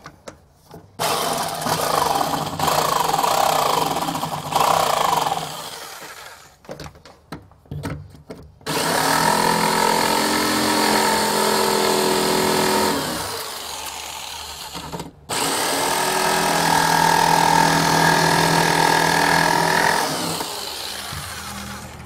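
Jigsaw trimming the edges of a square cutout in a boat console, running in three spells of several seconds each with short pauses between.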